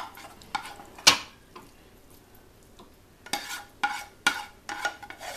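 A spoon scraping and knocking against a frying pan as cooked baingan bharta is scraped out into a serving bowl. There is a sharp knock about a second in, a quieter stretch, then a run of scraping strokes, about two a second, each with a slight metallic ring.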